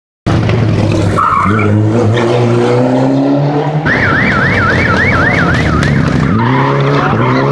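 Rally car engines revving hard and climbing in pitch as they accelerate away through the gears: a Ford Fiesta, then a Mitsubishi Lancer Evolution. Between the two runs, for about two seconds in the middle, a high warbling whistle sounds over the engine noise.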